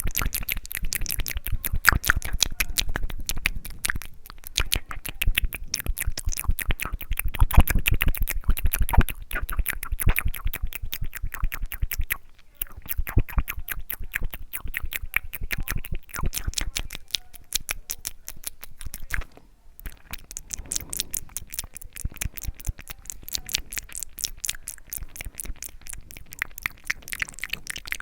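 ASMR mouth sounds made close to the microphone: rapid, wet clicking and smacking of lips and tongue, with two brief pauses.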